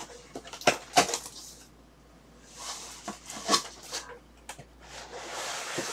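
A cardboard shipping box being opened and handled: sharp knocks and taps of cardboard, loudest about a second in, and cardboard rustling and scraping as flaps are pushed back, near the middle and again near the end.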